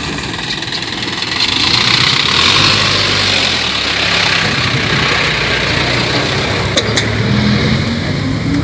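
A box truck's engine and tyres as it drives past close by, swelling to its loudest about two to three seconds in, then a steady engine hum continuing from the passing traffic.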